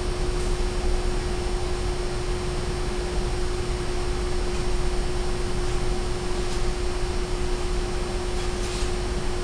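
Duramax LMM 6.6-litre turbo-diesel V8 idling steadily after maintenance, a low rumble with a constant whine over it.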